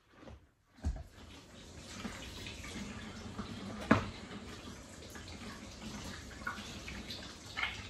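Water running from a kitchen tap into a bowl in the sink while cleaned perch are rinsed, starting about a second in after a low thump. A sharp knock near the middle is the loudest sound.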